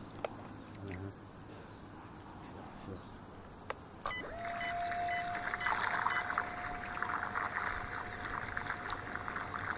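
Faint background for about four seconds, then a radio-controlled fishing bait boat's electric motor starts up with a steady whine and the splashing churn of water as the boat runs out from the bank.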